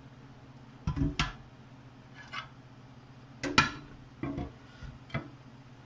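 Kitchen clatter: a string of irregular sharp knocks and clinks, like dishes and utensils being handled and set down, the loudest just past the middle, over a steady low hum.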